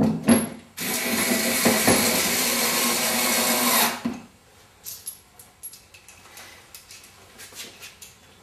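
Electric screwdriver running for about three seconds, driving a screw through the corner panel's lug into a threaded insert in the plastic side panel, then stopping. Light clicks and handling knocks follow.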